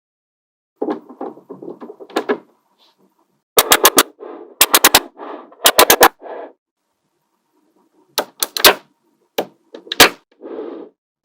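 Small magnetic balls snapping together with sharp clicks, in quick runs of three or four, between stretches of rattling as the balls roll and shift against one another. There is a short pause about two thirds of the way in.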